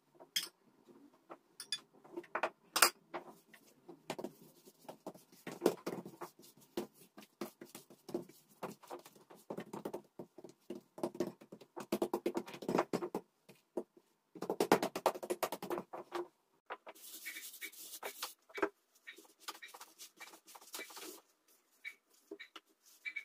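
Hands spreading butter over a large, thin sheet of dough and stretching it: soft rubbing and patting with scattered light clicks.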